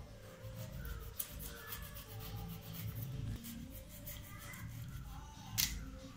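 Small kitchen knife scraping and slicing the rough skin off a raw elephant foot yam: a run of short, faint scratching strokes, with a sharper click about five and a half seconds in.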